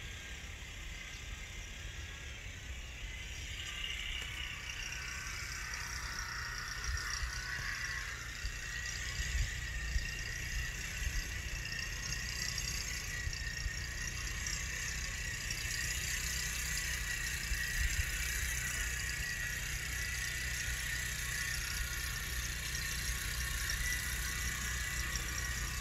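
Small engine of a walk-behind roller machine running steadily, slowly getting louder as it comes closer.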